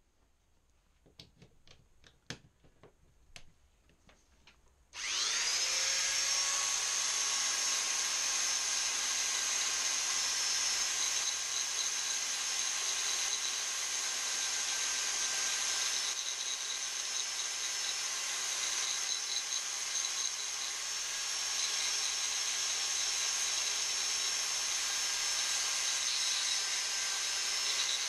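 Electric power file (narrow belt sander) starting up about five seconds in and running steadily with a constant whine, its belt sanding the paint off an engraved aluminium badge. Before it starts, a few light clicks and knocks from handling.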